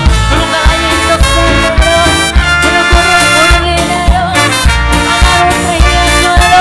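Live tropical dance band playing: a brass section of trumpets and trombone holds long notes over bass and percussion with a steady beat.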